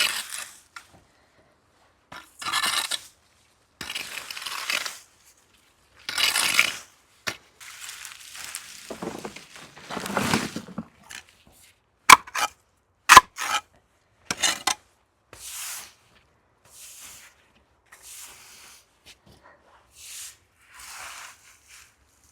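Bramble stems being cleared from a border: a run of separate rustling, scraping and tearing bursts, with a few sharp clicks in the middle.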